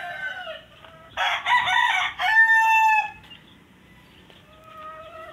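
A rooster crowing loudly about a second in, the crow ending in a held note, after the falling tail of an earlier crow. Fainter chicken calls follow near the end.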